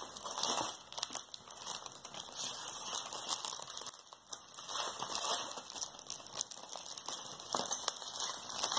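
Aluminium foil wrapper crinkling and tearing in short, irregular crackles as it is peeled by hand off a chocolate Easter egg.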